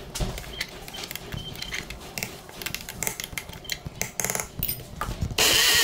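Clicks and knocks of a mixer grinder jar being handled, then about five seconds in the electric mixer grinder switches on and runs loudly in a short pulse, coarsely grinding soaked moong dal.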